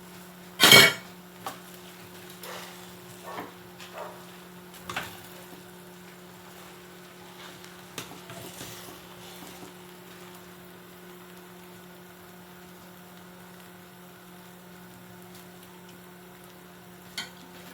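A sharp clatter of a pot or lid, then several lighter knocks and scrapes of a spoon in a pot of steaming rice, over a steady low electrical hum.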